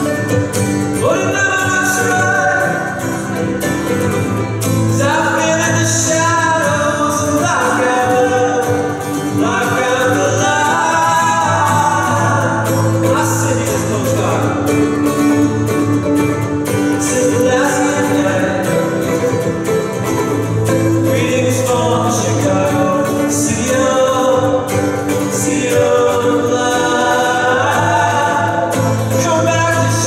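Acoustic duet: violin and acoustic guitar playing a song, with male voices singing.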